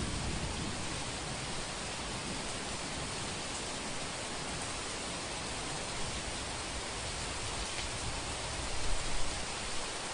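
Steady hiss of heavy rain, with a low thunder rumble fading out at the start and a brief louder swell near the end.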